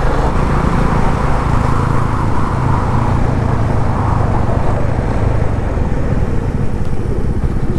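Yamaha FZ25 motorcycle's single-cylinder engine running steadily at cruising speed, with wind noise rushing over the camera microphone.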